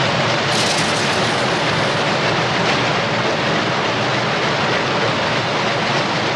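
Textile mill machinery running: a loud, steady, dense mechanical clatter.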